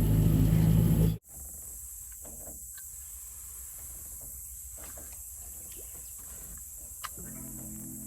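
Boat motor running with a steady hum, cut off abruptly about a second in. Then comes quieter open-air background with a steady high hiss, and music starts near the end.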